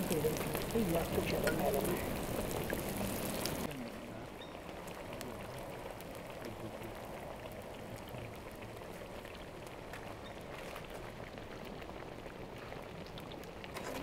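Potato patties deep-frying in hot oil in a cast-iron cauldron, a steady sizzling hiss that cuts off abruptly about four seconds in. After that comes a much quieter background with faint scattered ticks.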